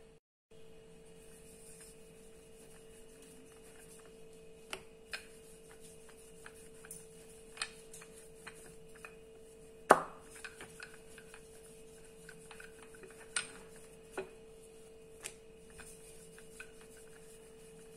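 Wooden rolling pin rolling out soft roti dough on a floured countertop: faint rolling and rubbing with scattered light clicks and knocks, the loudest about ten seconds in.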